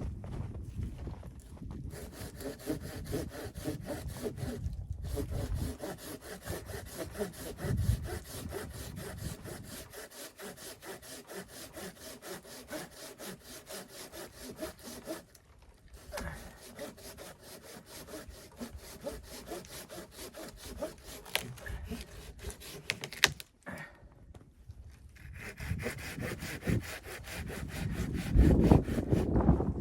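Hand saw cutting wood in steady, rapid, even strokes, with a couple of brief pauses and a stop a little past two-thirds of the way through.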